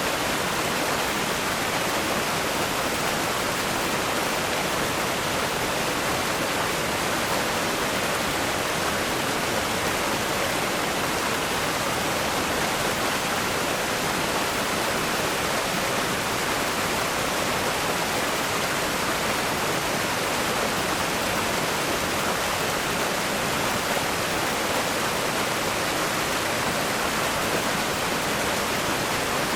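River rapids rushing over rocks: a loud, steady, unbroken roar of white water.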